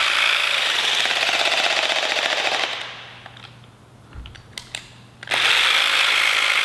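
Jigsaw (Vybe) percussion massage gun running at its second speed, a rapid, loud hammering. It dies away about three seconds in, a few small clicks follow, and it starts hammering again about two seconds later.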